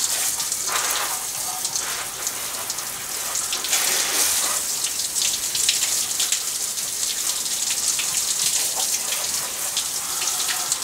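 Garden hose spray nozzle spraying water over a car's engine bay, a steady hiss of spray on metal, rinsing off spilt brake fluid.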